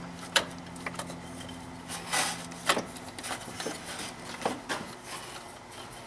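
Hands fitting a ribbed rubber serpentine belt over engine pulleys: scattered small clicks and knocks, with a brief rubbing sound about two seconds in. A low steady hum runs underneath and stops a little before the three-second mark.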